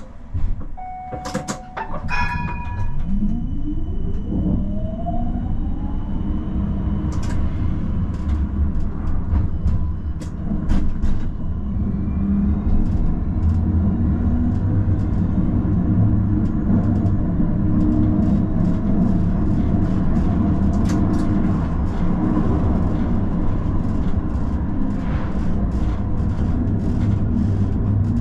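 Tram pulling away and accelerating, its traction motor whine rising in pitch over a few seconds. It then runs on with a steady low rumble and scattered clicks and rattles from the rails. A few short electronic tones sound just before it moves off.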